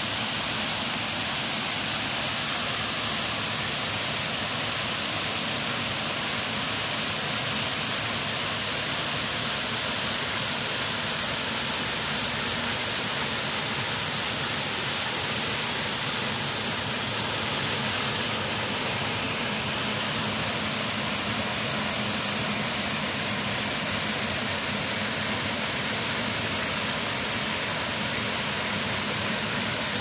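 Steady rushing hiss of a tiered waterfall, water cascading down over rock ledges into a pool.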